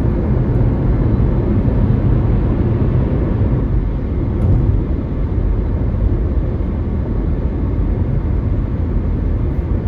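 Steady low rumble of tyre and wind noise inside a Toyota Prius's cabin while driving.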